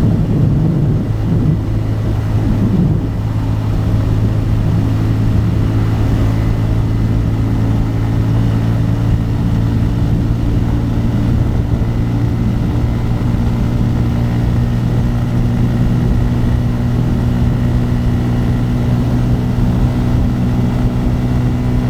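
Bajaj Pulsar N250's single-cylinder engine and exhaust running at a steady cruising speed, one even drone that holds its pitch throughout.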